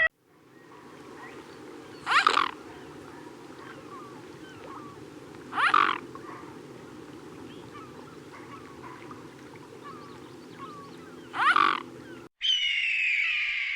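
An animal calling three times in short, harsh calls about three to six seconds apart over a steady background hum. Near the end, a different animal gives a sustained squawking call.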